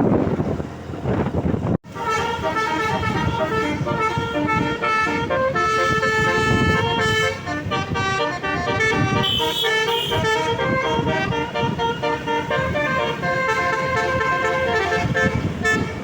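A bus's basuri musical horn playing a tune of shifting sustained notes. The tune starts about two seconds in, after rushing noise and a sudden cut.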